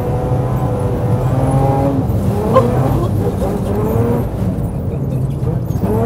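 A BMW rally car's engine, heard from inside the cabin, revving hard under full throttle on ice. Its pitch climbs and drops again and again as the car is driven flat out and powerslid.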